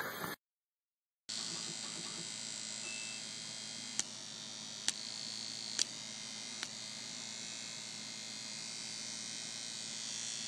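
Steady electrical hum and hiss, with four short sharp clicks about a second apart midway through.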